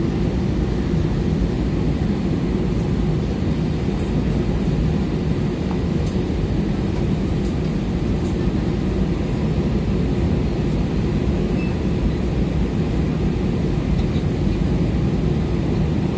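Steady low rumble inside an airliner cabin on the ground: jet engine and air-conditioning noise with a faint steady hum, and a few faint high ticks.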